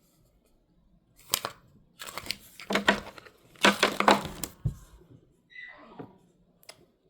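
Crinkling and crackling of plastic as a squishy toy and its packaging are handled and squeezed, in short bursts that are loudest about four seconds in.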